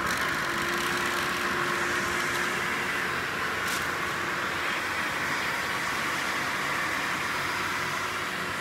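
Hot-air gun running steadily, its fan blowing a rushing stream of hot air through newspaper to fuse a seam in plastic sheeting. It stops at the very end.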